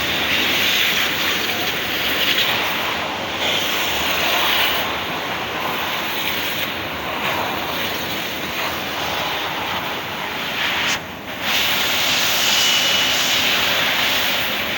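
Depureco ATEX BL45 industrial vacuum cleaner running with a steady, loud rushing hiss of air, which briefly drops and comes back about eleven seconds in.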